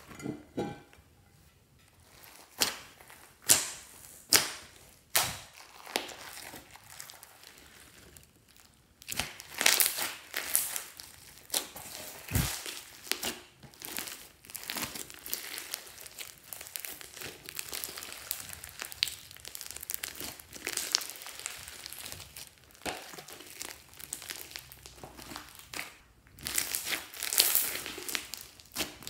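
Hands squeezing and kneading a thick slime full of small foam beads, making wet squishing and crackling. There are four sharp pops about a second apart in the first few seconds, then a long run of dense crackling as the slime is worked.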